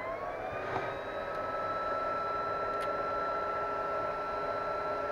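Cooling fans of an Eltek Flatpack 1500 W rectifier power supply spinning up: a whine rises in pitch over about the first second, then holds steady with an airy rush. The fans have just been balanced and run with a slight vibration left.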